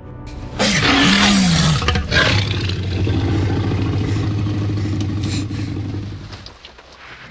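A dinosaur roar sound effect. A loud cry that falls in pitch starts about half a second in, then gives way to a long, low, held roar that fades out near the end.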